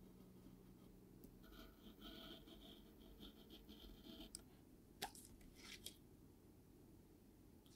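Faint scratching of a hobby knife blade slicing through a printed paper label sheet along a steel ruler, followed about five seconds in by a sharp tick and a few short scratches.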